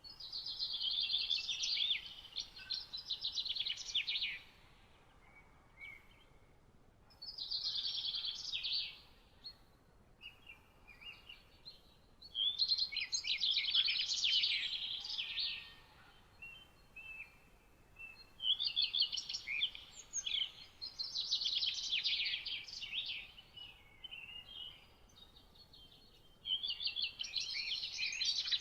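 A songbird singing phrases of rapid, high notes, each about two to four seconds long, with short pauses between them, over a faint steady background hiss.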